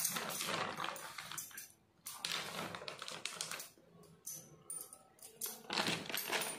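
Plastic packet of besan (gram flour) crinkling and rustling as it is shaken out over a steel bowl and handled, in irregular crackly bursts with a short pause about two seconds in.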